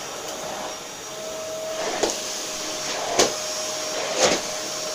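Steady whooshing room noise with a faint steady hum, like a running fan. Three short sharp clicks or knocks cut through it, about a second apart, in the second half.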